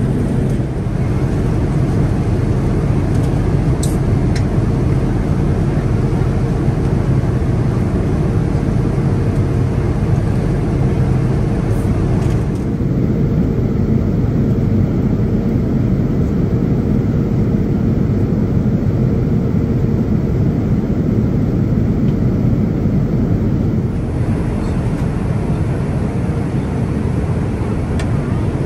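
Steady engine and airflow noise inside the cabin of a Boeing 787-9 airliner, an even low rush without breaks.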